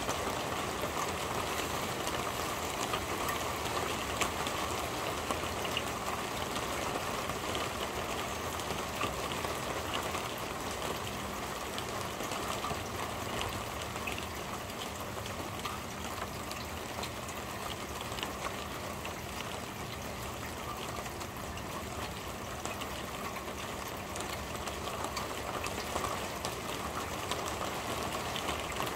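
Steady rain falling on a corrugated metal roof, a dense patter of many small drop ticks.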